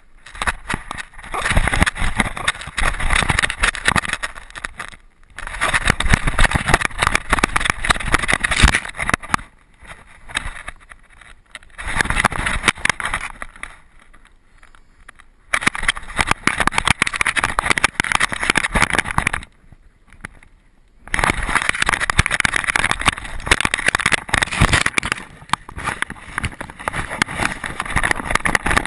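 Wind buffeting and jolting rumble on a GoPro carried on a dog's back harness while the dog runs through grass. It comes in long bursts of several seconds, broken by short quieter spells when the dog slows or stops.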